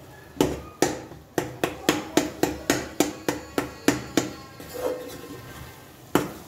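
Metal spoon knocking against a metal karahi while stirring food in it: a quick run of about a dozen sharp clanks, roughly three a second, then a pause and one more clank near the end.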